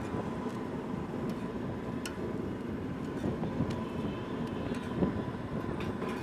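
A steady low rumble with a steel spatula clicking and scraping now and then against a hot iron griddle as a paratha is pressed and turned; the loudest click comes about five seconds in.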